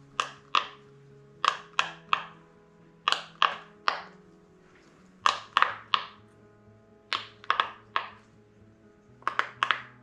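Bubbles of a rainbow silicone pop-it fidget toy being pressed through, giving sharp, short pops in quick clusters of two or three, about a third of a second apart, with a pause of a second or so between clusters. Quiet background music with held notes plays underneath.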